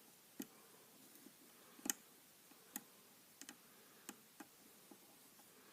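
Faint, irregular metal clicks and ticks of a lock pick working the pins inside a West Coast Picks 'The Stranger' pin-tumbler challenge lock under tension, about eight clicks, the sharpest about two seconds in.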